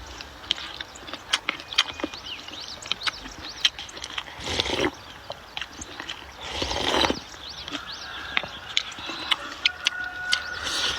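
Close-miked eating sounds: chewing with many short wet smacks and clicks, and two longer noisy rushes about four and a half and seven seconds in. Birds chirp faintly in the background.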